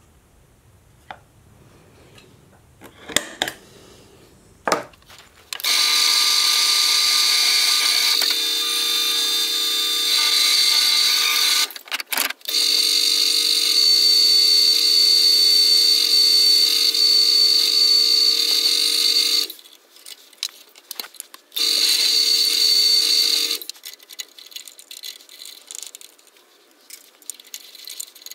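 Drill press running and drilling through an aluminium flat bar: a steady whine with a high squeal. It starts about five seconds in, stops briefly around twelve seconds, and runs again for about two seconds after twenty seconds. Light clicks come before it, and small clatter follows.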